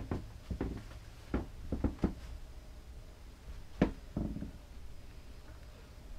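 Footsteps and light knocks on the wooden floor and joinery of a yacht's cabin: a dozen or so irregular bumps, the sharpest about four seconds in, over a low steady hum.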